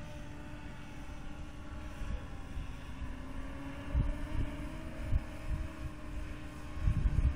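Wind buffeting the microphone in gusts, over a faint steady hum from the DJI Phantom 3 Professional quadcopter's motors and propellers, drifting slightly in pitch.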